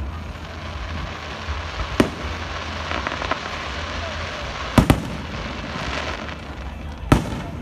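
Fireworks going off: sharp bangs about two seconds in, a quick double bang near five seconds and another near seven, with crackling in between.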